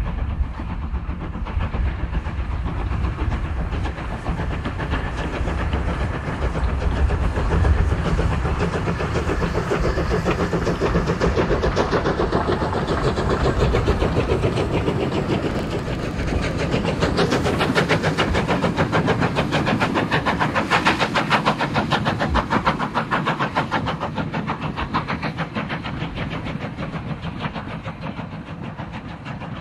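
GER J15 0-6-0 steam locomotive working a short vintage train, its exhaust beating in a fast, even rhythm with the rumble and clatter of the coaches on the rails as it passes and draws away.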